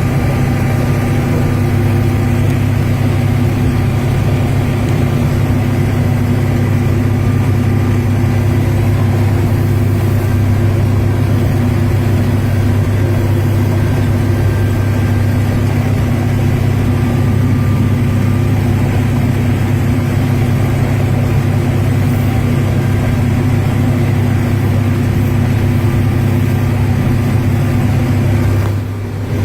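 A motor running steadily, with a strong low hum and steady higher tones above it; the level dips briefly near the end.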